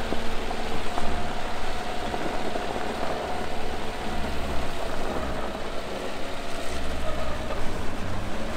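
Dacia Duster's 1.5 dCi diesel engine running steadily as the car drives along a snowy dirt track, over a steady hiss of tyre and wind noise.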